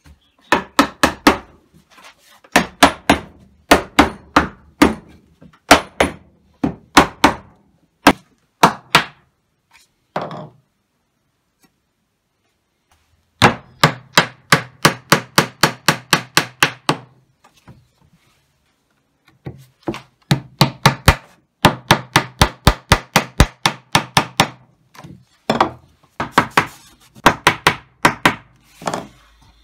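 Runs of quick hammer blows on wood, about four a second with short pauses between runs: a rubber mallet knocking a breadboard end onto a table top's tenon, then a hammer driving wooden dowels into their holes through the joint.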